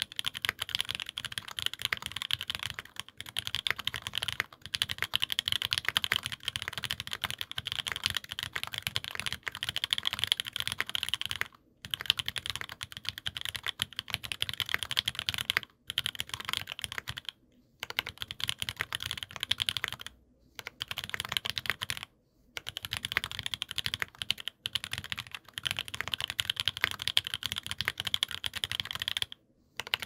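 Continuous fast typing on a Monstargear XO K80 aluminium gasket-mount keyboard fitted with lubed Wuque Studio OA switches and GMK Wob keycaps: a dense run of keystroke clacks, broken by a few brief pauses.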